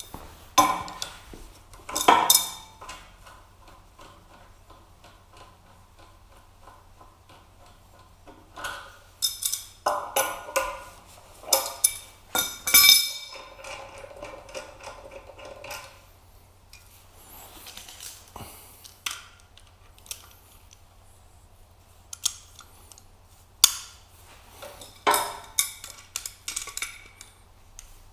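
Metal pressure-washer fittings and tools clinking and clanking as they are handled, in scattered bursts of sharp knocks with a brief metallic ring, over a faint steady low hum.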